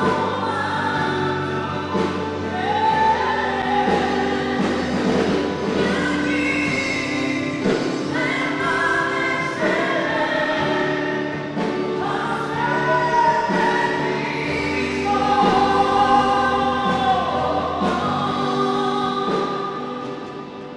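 Live worship music: slow gospel-style singing with held, gliding vocal lines over sustained keyboard chords through the church's speakers. It fades down near the end.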